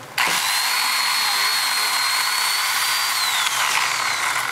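Chainsaw running at high revs, starting abruptly just after the start with a high-pitched whine that drops in pitch about three seconds in.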